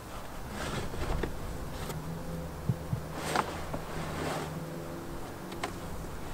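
Fibreboard car headliner scraping and rustling as it is worked by hand through the trunk opening, with two light knocks a little under 3 s in. A faint steady hum runs underneath.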